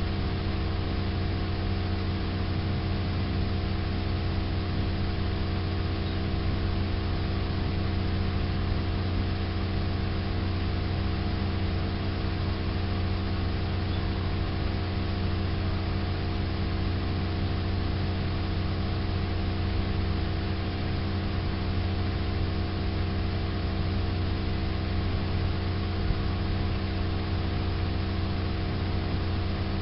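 Steady low mechanical hum of a running machine, holding several fixed tones, with no change in pitch or level.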